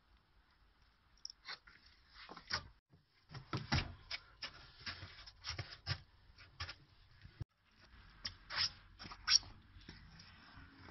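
Irregular scrapes, crunches and knocks of shoes on a snow-covered wooden playground platform as a person climbs and shuffles into position.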